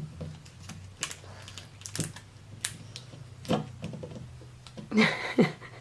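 Scattered small clicks and crinkles of plastic toy packaging being handled and opened, over a faint steady hum.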